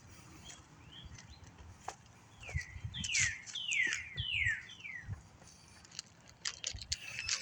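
A songbird singing a run of about five clear, falling whistled notes, evenly spaced, with a fainter call earlier. Scattered clicks and taps are heard, mostly near the end.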